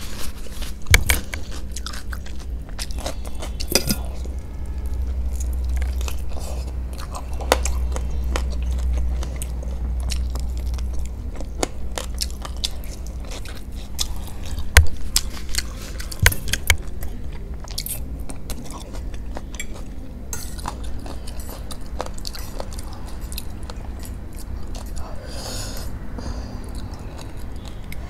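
Close-miked mouth sounds of a person chewing and biting food, with many sharp, irregular clicks and smacks.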